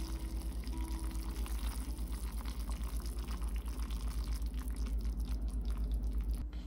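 Hot water pouring from a stainless steel pot into a cup of instant noodles, a steady splashing pour that stops near the end.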